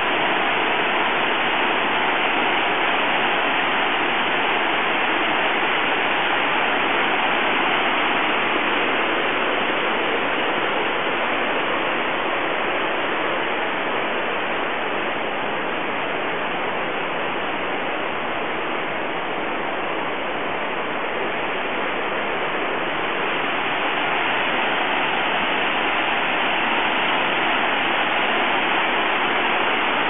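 Waterfall and the rapids below it rushing in a steady, full roar of water, a little quieter for a while past the middle.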